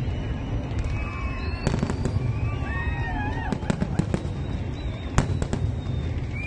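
Aerial fireworks going off in a rapid, irregular series of bangs and crackles over a steady low rumble, with the loudest bang about five seconds in.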